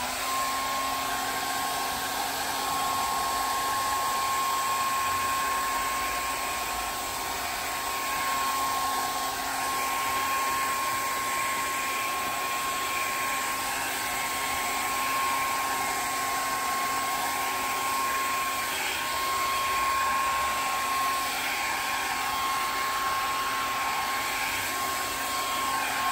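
Handheld hair dryer running on its high setting: a steady rush of air with a constant whine. It comes on right at the start, rising in pitch as the motor spins up, then holds steady.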